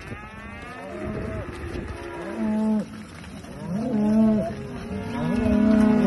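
Aberdeen Angus cattle mooing, several calls one after another from the herd, the loudest in the second half.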